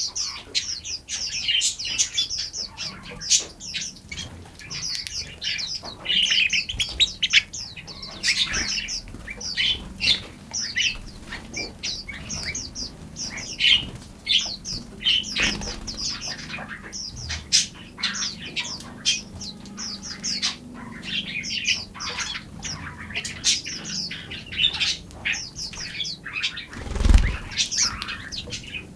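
Several small songbirds chirping and singing at once, a dense run of quick high chirps and short phrases throughout. A single low thump near the end is the loudest sound.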